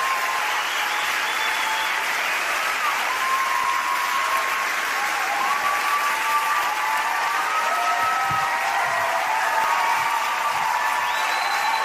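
Theatre audience applauding steadily, with long held calls rising over the clapping.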